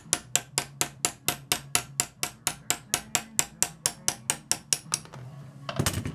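A hammer tapping a 3/16-inch punch lightly and quickly, about four or five even taps a second, to drive out the split pin holding a shift dog on a Toyota Tercel 4WD manual transmission shaft. The tapping stops about five seconds in, and a short clatter of metal follows near the end.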